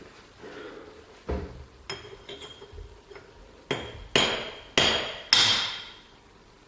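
Hammer striking metal to drive a part further into a lathe apron: a few lighter taps, then four hard blows about half a second apart, each leaving a short metallic ring.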